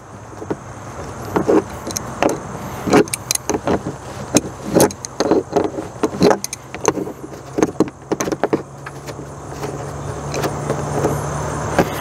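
Small metal clicks and scrapes as the retaining nut is turned off the back of an old RV compartment-door thumb lock by hand, the nut and lock clinking. A steady low hum grows louder over the second half.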